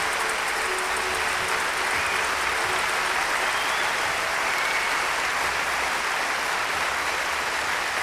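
Audience applauding steadily as a song ends, with the band's last held note dying away over the first few seconds.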